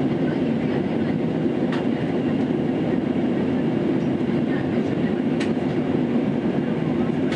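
Steady, unchanging rumble of an Airbus airliner's jet engines and airflow heard inside the passenger cabin, with a couple of faint clicks.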